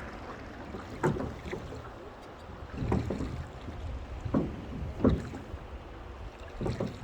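Oars working a small river boat, about five separate strokes with splashes and knocks, over a steady low rumble of wind and moving water.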